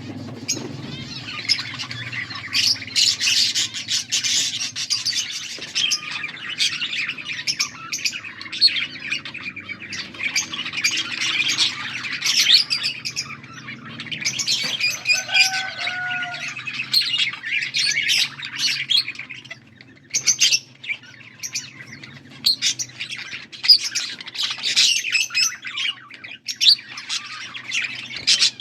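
Budgerigars chirping and warbling in a continuous dense chatter, with louder sharp calls here and there.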